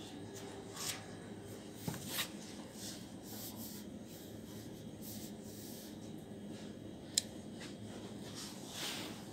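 Pen scratching on a paper form in short strokes as someone writes by hand, over a steady background hum, with a sharp click about seven seconds in.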